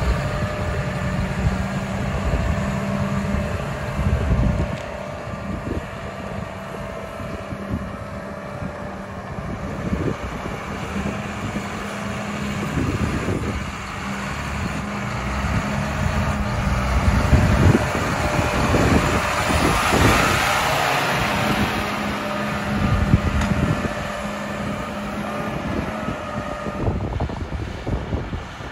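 John Deere 6190R tractor's six-cylinder diesel engine running steadily as the tractor drives off, turns and comes back, louder for a few seconds in the middle.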